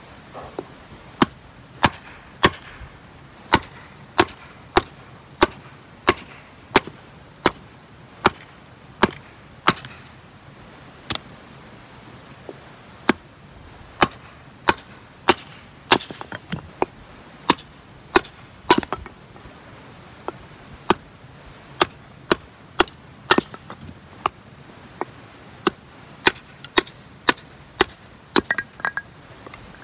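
Kindling being split on a wooden stump with a hatchet knocked through the wood by a wooden baton: a steady run of sharp wooden knocks, about three every two seconds, with a few short pauses.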